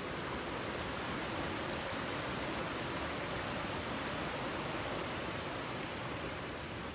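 Steady rushing of a small mountain creek flowing over rocks.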